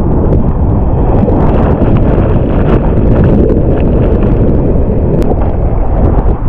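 Loud, steady wind noise on a GoPro's microphone over the rush of breaking whitewater as a surf kayak rides a wave, with scattered ticks of spray hitting the camera housing.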